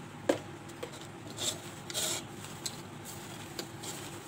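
A hand rubbing and tossing salted, cut raw vegetable strips in a bowl: a few short rustling scrapes, with a sharp click about a third of a second in.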